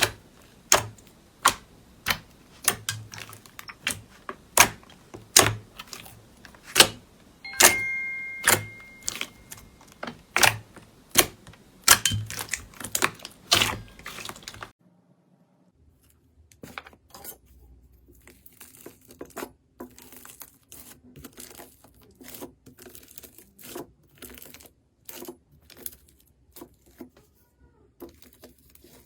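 Slime being squeezed and poked by hand: a run of sharp, sticky pops and clicks about one or two a second. After a cut about halfway, a quieter, denser crackling of slime being worked.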